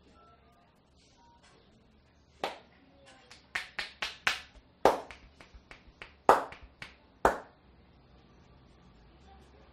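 A masseur's hands striking in percussive massage: about fifteen sharp, clap-like slaps in an irregular run, starting about two and a half seconds in and lasting some five seconds.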